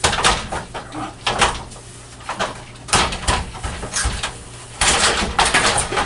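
Irregular knocks and clatters of a sliding shower door's top track and glass doors being banged and worked loose overhead.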